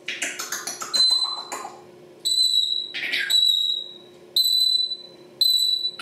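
African grey parrot mimicking electronic beeps. A quick run of sharp clicks is followed by about five high, steady beeps roughly a second apart, with one falling whistle about three seconds in.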